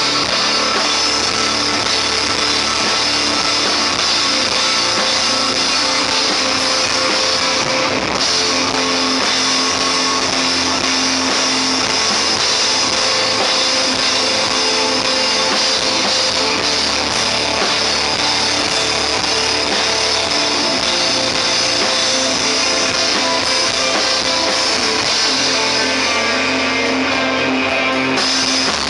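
Instrumental rock band playing live: electric guitar, bass guitar and drum kit, steady and full with no vocals.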